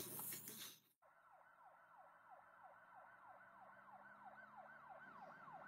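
Faint emergency-vehicle siren in a fast yelp, sweeping up and down about three times a second, starting about a second in.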